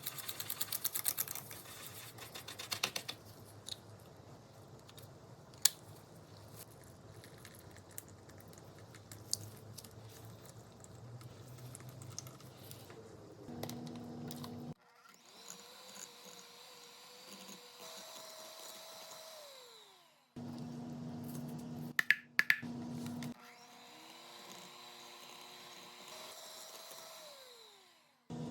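Kitchen work sped up to double speed: a run of quick taps and clatter, then a small electric appliance motor humming in three short bursts, the third starting near the end.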